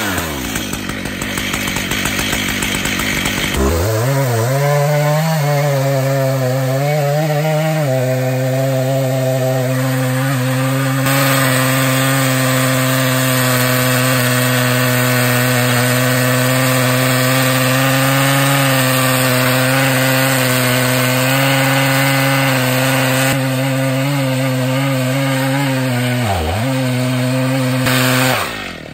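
Stihl MS880 two-stroke chainsaw on an Alaskan chainsaw mill, cutting a beech log lengthwise. The engine revs up sharply about four seconds in, wavers briefly, then holds a steady high-revving note under load, with a brief dip in pitch near the end before it drops off.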